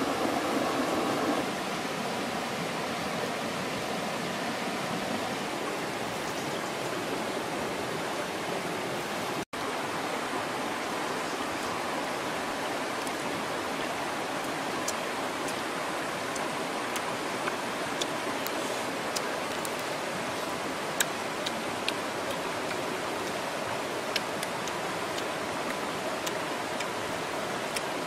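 Stream water rushing steadily over rocks. A few faint sharp clicks come through in the second half.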